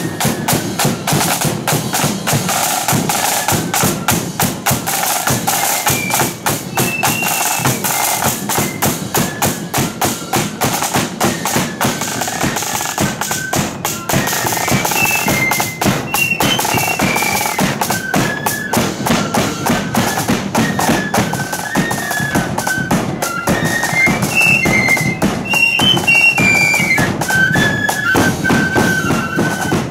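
Marching flute band playing: rapid side-drum strokes and rolls with a bass drum keep up a dense beat throughout, and a high flute melody comes in a few seconds in and grows stronger through the second half.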